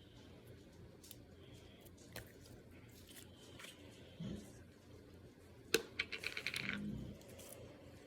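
A sharp click, then about a second of fast rattling clicks, as of small hard objects dropping and clattering on a hard surface.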